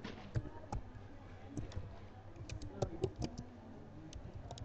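Typing on a computer keyboard: irregular keystrokes coming in short runs.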